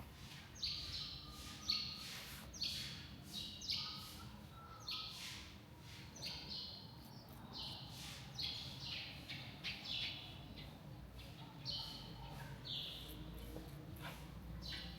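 Small birds chirping, short high chirps repeated irregularly about once or twice a second, over a low background hum with a few faint clicks.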